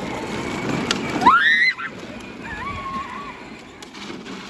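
Battery-powered John Deere ride-on toy tractor rolling over a concrete driveway, its hard plastic wheels making a rough rolling noise. About a second in, a child lets out a short, high, rising squeal, the loudest sound here.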